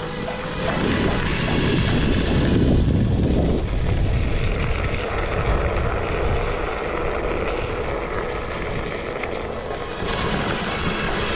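Wind rushing over the microphone and tyre noise from a Onewheel electric board rolling down a wet, hail-strewn paved trail. The noise is heaviest in the first few seconds, then settles to a steady rush.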